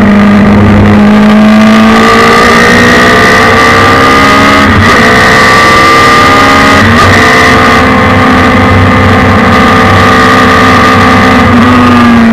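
Loud onboard sound of a Suzuki Hayabusa inline-four motorcycle engine powering a race car at full throttle. It rises in pitch as the car accelerates, with two quick upshifts about five and seven seconds in. It then holds at high revs and drops away near the end.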